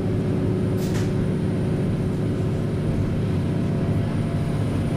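Diesel local train running along the line, heard from inside the car: a steady engine drone with rail noise. A short high hiss comes about a second in.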